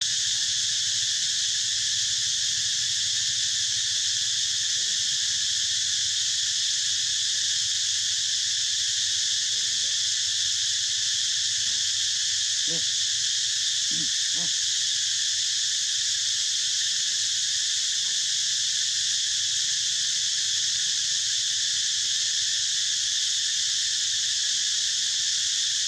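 Steady, unbroken chorus of insects buzzing in the trees, high-pitched and constant in level, with a couple of brief faint low sounds around the middle.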